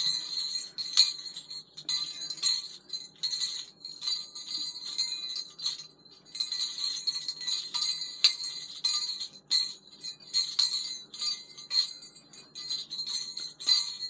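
Jingle bell begleri being flipped and swung: small jingle bells on a chain jingling in repeated shakes, about two a second.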